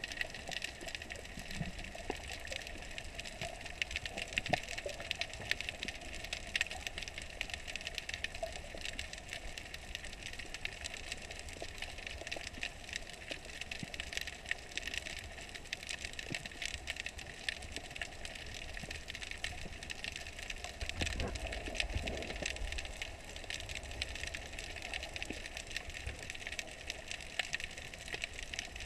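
Underwater ambience picked up by a submerged camera: a steady hiss full of fine crackling clicks, with a low rumble of water movement that swells about two-thirds of the way through.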